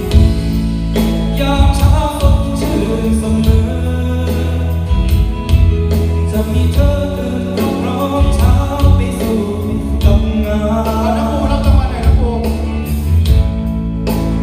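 Music: a song with singing over a steady beat and sustained bass.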